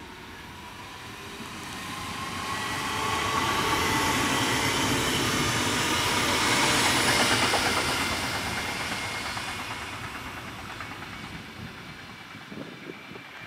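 A DB class 425 electric multiple unit passing on the rails: a whine over the rumble of the wheels on the track, swelling to its loudest about six seconds in and then fading as the train moves away.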